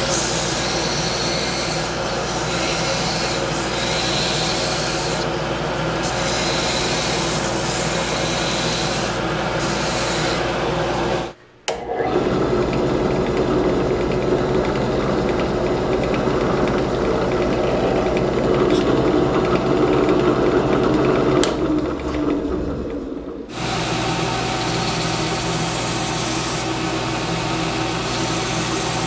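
Belt grinder running as a pair of laminated-wood razor scales, glued together, are ground to shape against the belt. After a cut about eleven seconds in, a benchtop drill press runs and drills through the scales. The belt grinder returns for the last five seconds or so.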